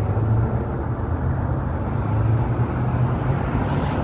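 Steady rumble of road traffic from cars passing on a busy street, with a hiss swelling near the end as a vehicle goes by.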